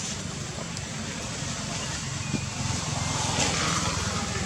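A low, steady engine-like rumble runs throughout, with a rushing noise that swells about three seconds in.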